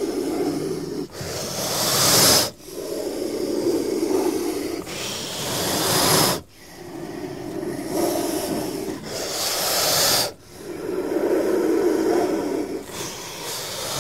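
Snake hissing in a repeating cycle: a lower, steady hiss broken by a sharper, higher hiss about every four seconds, three times over.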